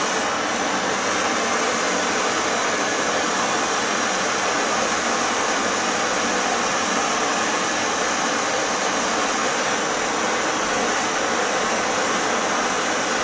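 Propane torch flame burning with a steady hiss while heating a copper pipe fitting to sweat the joint with solder.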